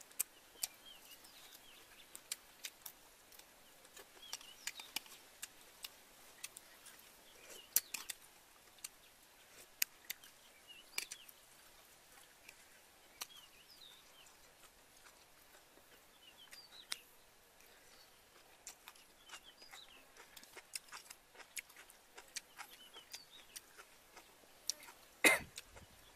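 Close-up eating sounds: irregular wet chewing and mouth clicks as a person eats mouthfuls of stir-fried shrimp and green onion, with one sharper smack near the end. Small birds chirp faintly in the background.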